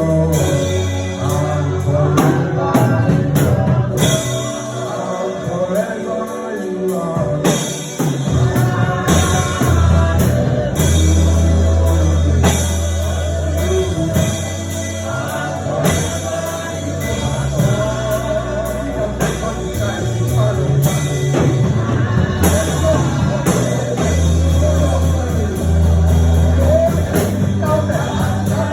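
Gospel worship song in a highlife style: voices singing over a band with a pulsing bass, drum kit and guitar.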